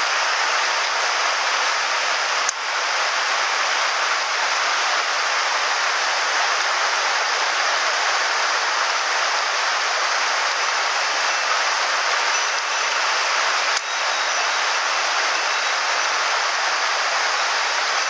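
Shallow mountain stream rushing over cobbles in a steady, even hiss. Two brief clicks come through it, about two and a half seconds in and again near fourteen seconds.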